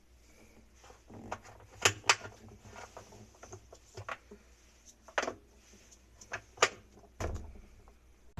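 A series of sharp separate clicks and knocks, the loudest two in quick succession about two seconds in, with more around five and six and a half seconds in.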